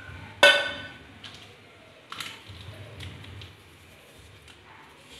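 Handling sounds at a plastic blender jug: a sharp knock with a short ring about half a second in, a weaker knock at about two seconds, then faint clicks and rustles as a paper sachet is handled over the jug.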